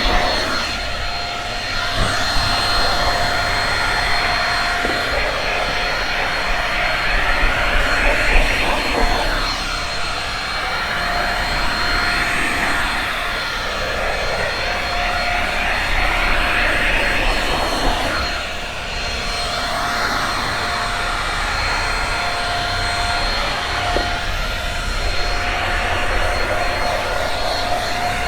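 Shark Rocket stick vacuum running with a steady high motor whine. Its suction noise swells and eases every two to three seconds as the head is worked over the carpet.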